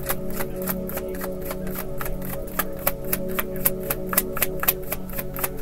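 A tarot deck being shuffled by hand: a quick, uneven run of card snaps and taps, about five or six a second. Behind it plays background music of steady held tones.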